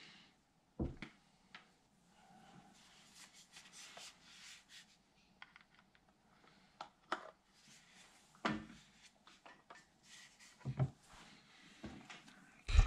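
Quiet handling noises: soft rubbing and scraping with a few light knocks as a small plastic Eero mesh router unit and its power cable are picked up, plugged in and set down on a wooden desk.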